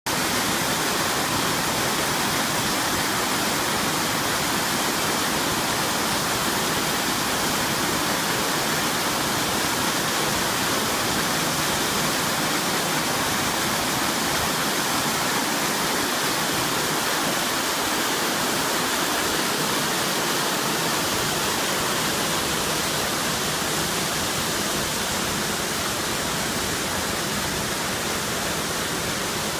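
Waterfall: falling water rushing steadily, a little softer near the end.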